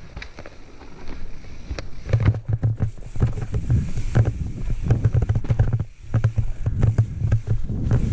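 Santa Cruz Nomad full-suspension mountain bike rolling down a rooty, rocky singletrack: tyres rumbling over roots and rock with rattling and clicking from the bike. The first two seconds are quieter, then the rumble gets louder and stays rough and uneven.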